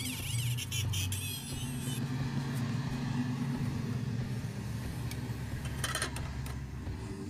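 A steady low engine-like drone, with a short cluster of clicks about six seconds in.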